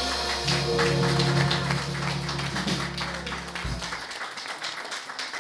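Live jazz band with trumpet, double bass, piano and drums holding a final chord that cuts off about three and a half seconds in, followed by audience applause.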